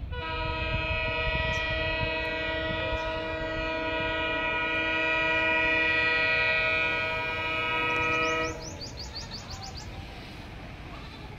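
Air horn of an approaching diesel locomotive sounding one long, steady multi-tone blast of about eight seconds that cuts off abruptly.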